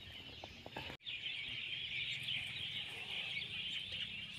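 Birds chirping in a dense, steady chorus, which starts after a brief gap about a second in.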